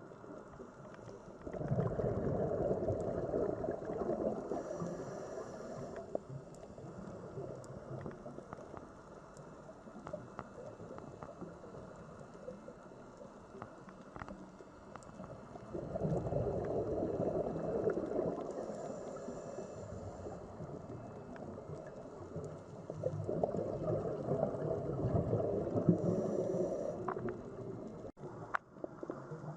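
Sea water ambience: a low rushing swell that builds and fades three times, about two seconds in, sixteen seconds in and twenty-three seconds in, over a steady quieter wash.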